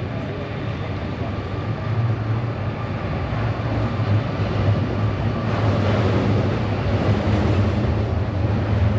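Low, steady rumble of a passing vehicle in the street, growing louder and hissier about halfway through.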